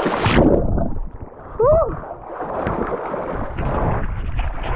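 Splashing as a man plunges into a cold, shallow river, then dull, muffled water churning around him, with a short cry about a second and a half in.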